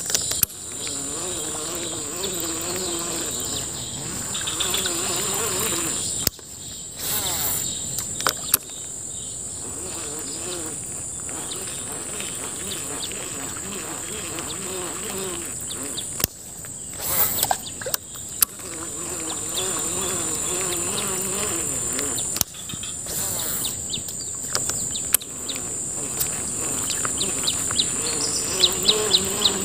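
Steady high-pitched insect drone, cut off briefly a few times, with a quick run of clicks near the end.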